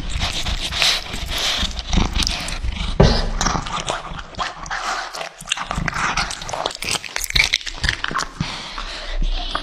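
A domestic cat chewing and tearing at a chunk of raw meat: rapid, irregular wet smacks and bites, with animal vocal sounds mixed in.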